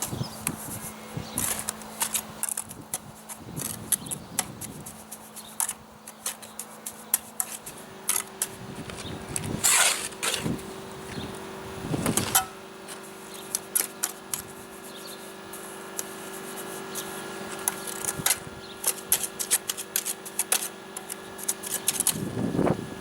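Bricklaying trowel scraping and slapping cement mortar, with sharp knocks from breeze blocks being set and tapped down. The scrapes and knocks come irregularly throughout, over a steady hum that steps up in pitch about eight seconds in.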